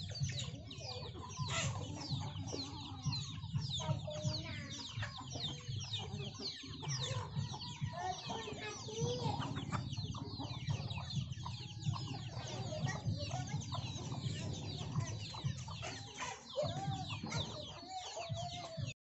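A flock of domestic hens and chicks feeding together: hens clucking while many chicks keep up a dense stream of high, short, falling peeps. The sound cuts off abruptly just before the end.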